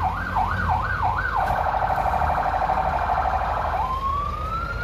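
Electronic vehicle siren: quick up-and-down yelp sweeps, about three a second, switching about a second and a half in to a rapid warble. Near the end it slides up into a steady high wail. Under it runs the low rumble of an idling diesel truck engine.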